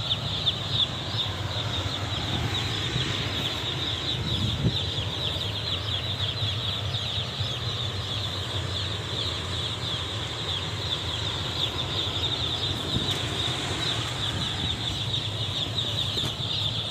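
A house full of thousands of newly arrived broiler chicks peeping without pause, a dense, high-pitched chorus of overlapping chirps, over a steady low hum.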